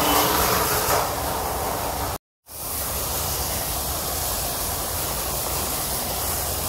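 A steady, loud rushing hiss with no distinct tones, broken by a short dropout about two seconds in.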